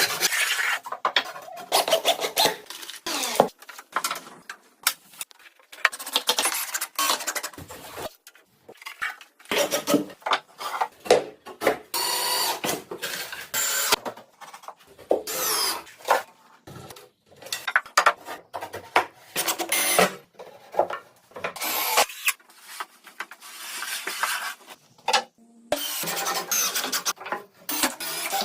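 Woodworking tools scraping and rasping on wood in a series of short, abruptly cut clips, each lasting about a second or two.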